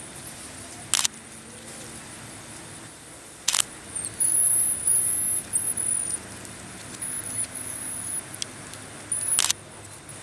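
Marmosets calling: short, very high, thin whistles, a run of them about four seconds in and more later on, with three sharp clicks in between.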